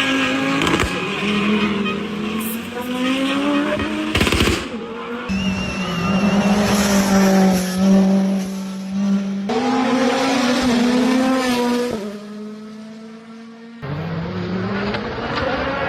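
Rally car engines at high revs, rising in pitch through the gears and dropping back, in several short clips that cut abruptly from one car to the next.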